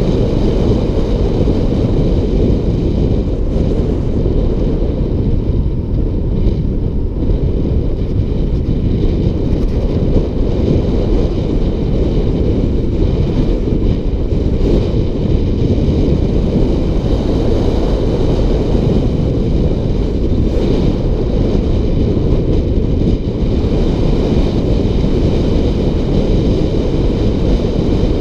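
Wind buffeting the microphone of a rider coasting fast downhill: a loud, steady, low rumble that does not let up.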